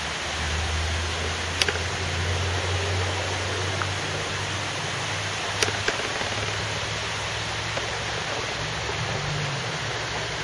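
Steady rushing of water pouring over the rim of a bell-mouth (morning-glory) dam spillway, with a low rumble beneath it. Two faint clicks, about a second and a half in and again about five and a half seconds in.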